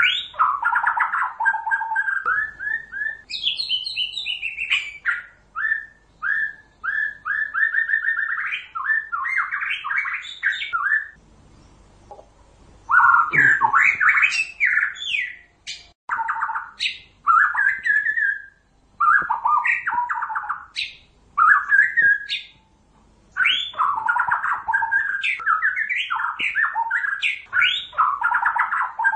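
White-rumped shama (murai batu) singing: long, varied phrases of rapid repeated whistled and chattering notes, with short pauses about 2, 11 and 22 seconds in.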